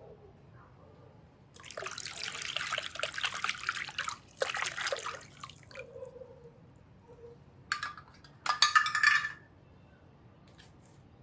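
Water splashing and pouring in bursts as toy vehicles are rinsed: two longer runs of splashing in the first half, then two short splashes near the end.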